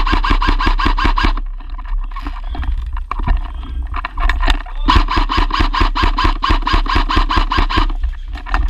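Airsoft rifle firing on full auto: two long bursts of rapid, evenly spaced shots. The first stops about a second and a half in. The second runs from about five to eight seconds in. Scattered clicks and clatter fill the gap between them.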